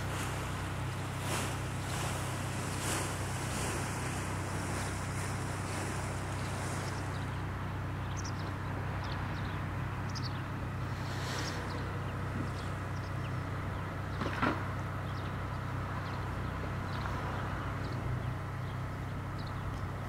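Steady low mechanical hum from an unseen motor, with faint high chirps of birds from about eight seconds on and a brief knock about fourteen seconds in.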